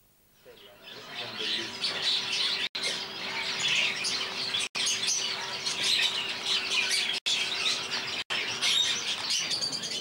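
A crowd of canaries chirping and twittering all at once in a dense, high chatter. It fades in about half a second in and cuts out for an instant four times.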